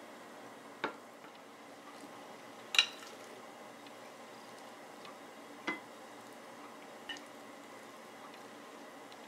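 Four light clinks of a metal spoon against a glass dish and ceramic plate as chili-oil-dressed shredded chicken and green onion is spooned out, the sharpest and most ringing about three seconds in, over a low steady room hum.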